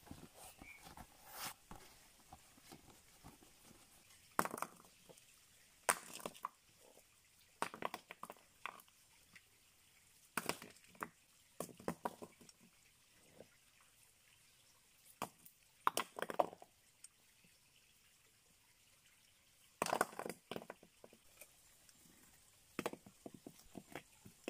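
Stones set down on a rock slab, giving irregular sharp knocks and scrapes every second or few, over a faint background hiss.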